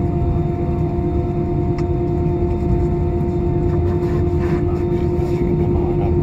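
Jet airliner taxiing, heard from inside the passenger cabin: a steady low rumble of the engines at taxi power with a constant droning tone over it.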